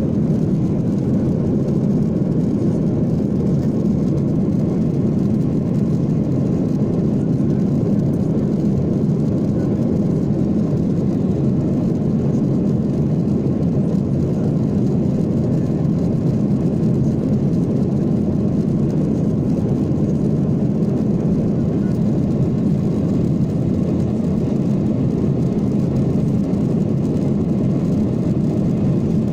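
Steady low cabin noise of a jet airliner in flight, heard from inside the cabin: engine and airflow noise at an even level, without change.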